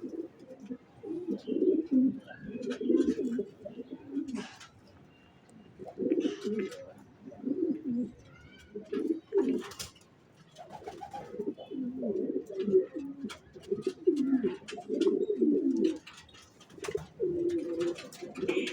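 Racing pigeons cooing over and over in low, warbling runs with short pauses between them, among scattered small clicks and rustles.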